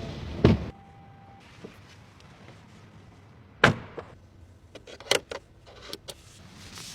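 Car door shutting with a heavy thud about half a second in, a second sharp knock a few seconds later, then a run of small clicks and taps, as in someone settling into a car before starting it.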